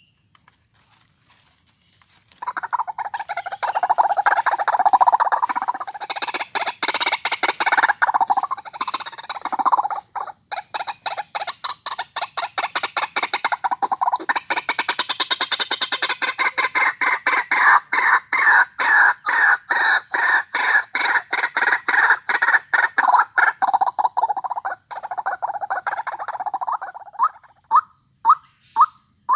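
White-breasted waterhen (ruak-ruak) calling: a long run of rapid repeated call notes starting about two seconds in, settling into a fast even pulse of about three or four notes a second, then slowing to about two a second near the end.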